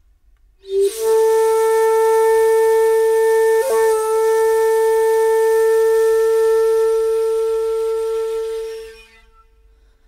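Solo flute holding one long, breathy note for about eight seconds: it enters from a short lower note, wavers briefly a few seconds in, and fades out near the end.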